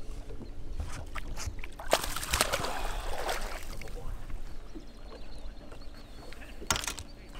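Bass being landed in a landing net beside a boat: water splashing as the net comes up out of the water about two seconds in, then a sharp knock near the end as the net is set down on the deck.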